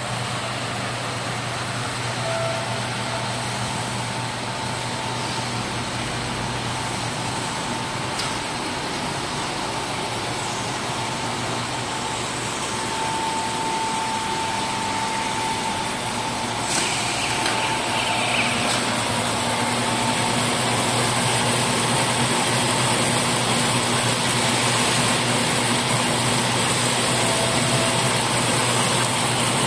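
Belt-type silage baler-wrapper running steadily with a continuous mechanical hum. A sharp click comes about 17 seconds in, after which it runs slightly louder with an added low hum.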